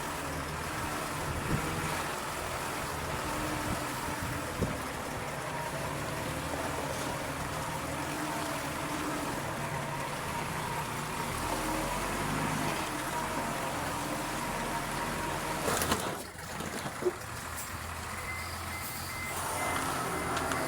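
Small D20 bulldozer's diesel engine running steadily, with a few sharp knocks and clanks.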